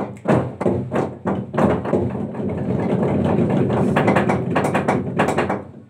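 Wooden log drum struck by a row of players with wooden beaters. Separate strokes come a few times a second, then quicken into a fast continuous roll about two seconds in, which stops suddenly just before the end.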